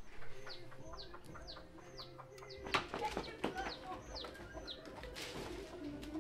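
A small bird repeating a short, high call that falls in pitch, about twice a second, with a cluster of sharp knocks about three seconds in.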